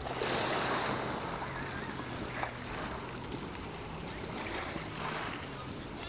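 Small sea waves washing onto a pebble beach, a hissing wash that swells and falls back every two to three seconds, loudest right at the start.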